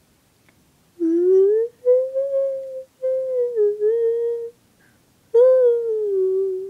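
A person humming a slow tune in four held phrases, the last one sliding down in pitch.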